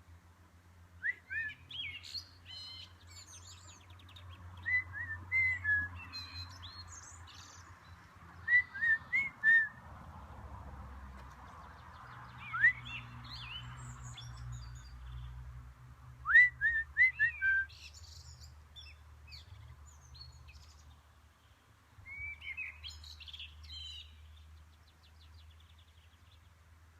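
Songbirds singing: short phrases of quick whistled notes come every few seconds, over a faint low steady hum.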